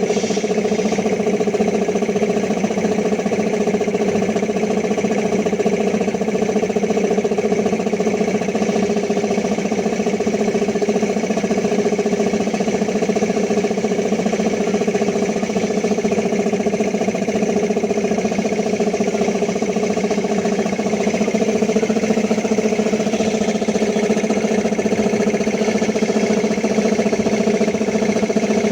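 Air compressor running steadily.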